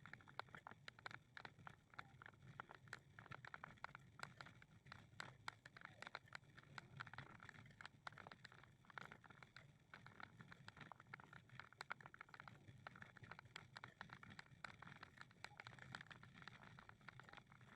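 Faint, quick, irregular patter of footsteps on a walking path.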